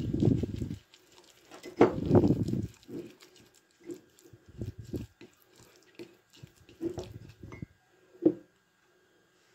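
Wooden spoon stirring and scraping a thick, oily paste of crushed garlic and herb powders in a glass cup, in irregular strokes that are heaviest at first and stop a little after eight seconds.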